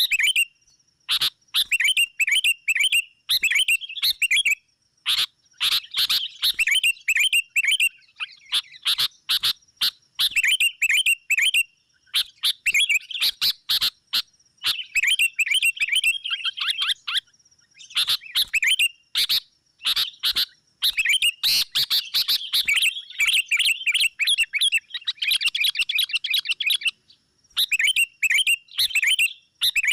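Sooty-headed bulbuls (kutilang) chattering in rapid, excited bursts, a decoy bird's call meant to draw rival bulbuls in. The bursts of quick notes come every second or two with brief pauses and sharp single chips between them.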